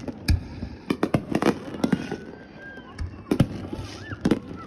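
New Year's fireworks going off: an irregular series of sharp bangs and booms, a few close together, with a few faint whistles gliding up and down between them.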